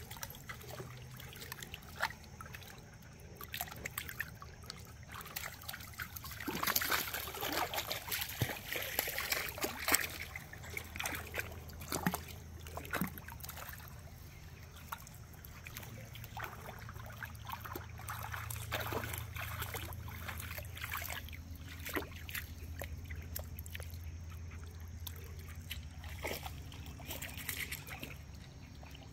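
A dog wading through a shallow creek, its legs splashing and sloshing the water over the steady trickle of the stream. The splashing is heaviest from about six to ten seconds in, with single splashes after that.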